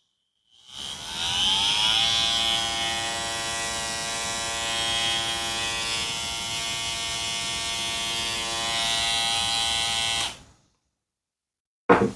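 Hair trimmer fitted with a replica Hi-Viz blade switched on and running: the buzz rises in pitch for about a second as the motor spins up, holds steady, and cuts off about ten seconds in. It runs quiet, the blade no longer loud.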